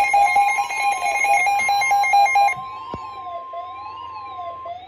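Weather radio alert tones: a steady tone near 1 kHz, typical of the NOAA Weather Radio 1050 Hz warning alarm, under a siren-like tone that sweeps up and down about once a second. A rapid string of stepping electronic beeps sounds over them for the first two and a half seconds, and the steady tone cuts off near the end.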